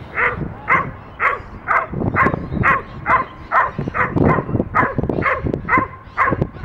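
Doberman barking steadily and repeatedly, about two barks a second. These are agitation barks at a decoy in protection bite-work training.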